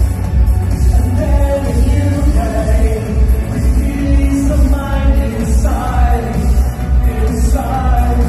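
Electropop band playing live through a concert PA: a heavy, steady electronic bass beat under a sung vocal melody, recorded loud from within the audience.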